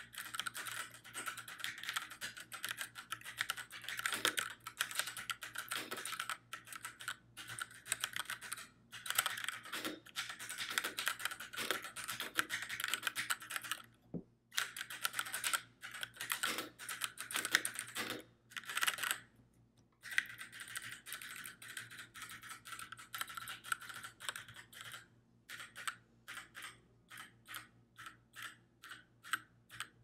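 Keychron K6 mechanical keyboard with Keychron red linear switches and ABS plastic keycaps being typed on: fast runs of keystrokes with a few short pauses. Near the end it slows to single keys pressed one at a time, about two or three a second.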